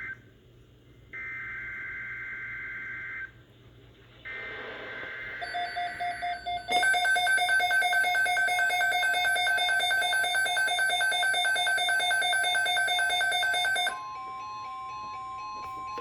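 Emergency Alert System tones: two screeching data bursts of the SAME header about a second apart, then a loud pulsing multi-tone attention signal for about seven seconds, then a quieter steady tone with stepping notes under it near the end. The tones mark the start of a severe thunderstorm watch alert.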